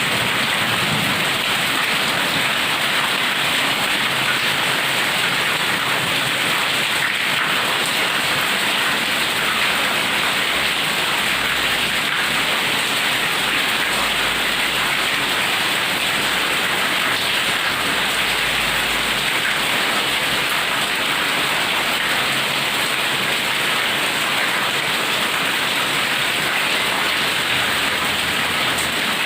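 Heavy rain pouring steadily, an even, unbroken hiss of rain on surfaces.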